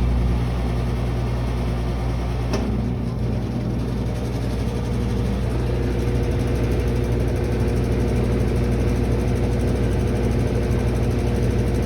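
Brastemp BWK12 12 kg washing machine running with a loud, steady droning hum. A single sharp click comes about two and a half seconds in, and a few seconds later the hum settles with a higher tone coming through.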